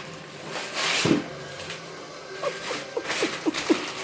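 Rustling of gift packaging being handled and pulled at, loudest about a second in, with a few short squeaky sounds near the end.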